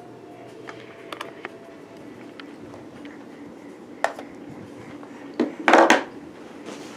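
Handling noises: a few light clicks, a sharper knock about four seconds in, and a louder half-second clatter, like dishes or objects knocking together, near the end.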